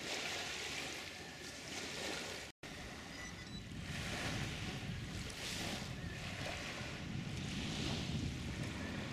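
Small waves washing onto a sandy beach, with wind on the microphone. The sound cuts out completely for a moment about two and a half seconds in.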